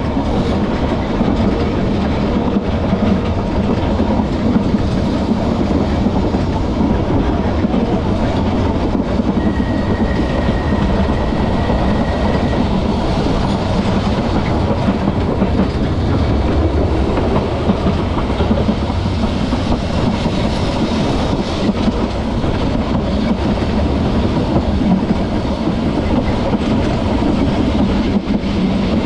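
Manx Electric Railway vintage electric tramcar running along the narrow-gauge line, a steady rumble and rattle of wheels on rail with clickety-clack over the track. A thin, steady high tone sounds for a few seconds about ten seconds in.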